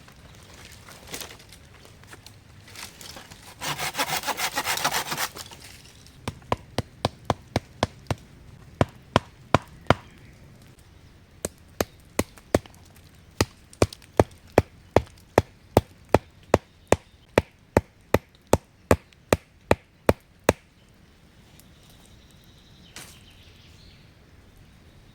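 Wood being cut by hand: a short spell of sawing, then a long, even run of sharp chopping strikes about two a second, pausing once briefly and stopping about twenty seconds in. A single knock follows near the end.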